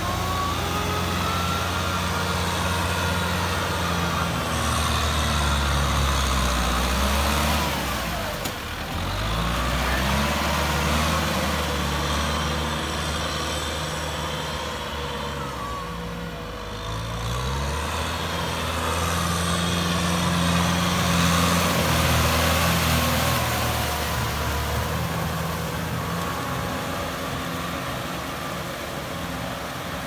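Kubota M6040SU tractor's diesel engine running under load as it drives a rotary tiller through wet paddy mud. The engine note dips and picks up again twice, about a third of the way in and just past halfway.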